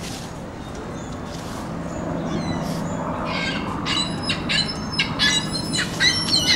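Gulls squawking: from about halfway through, a quick run of short, high calls, a few a second, over a steady low background rumble.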